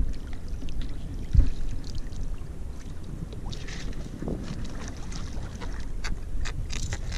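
Wind rumbling on the microphone over open sea, with water splashing as a landing net holding a fish is lifted out of the water. There is a single knock about one and a half seconds in.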